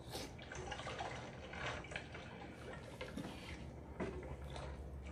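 Eating creamy chicken soup with a metal spoon: several small clicks of the spoon against the bowl and teeth, with soft wet slurping sounds, over a low steady hum.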